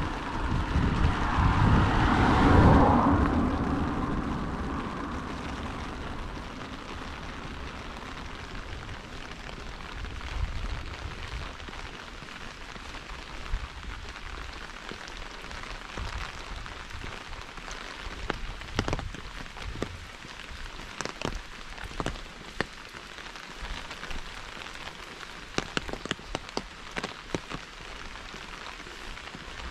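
A car passes on the wet road, its tyres hissing, loudest about two seconds in and fading away over the next few seconds. Then steady light rain, with scattered sharp ticks that grow more frequent in the second half.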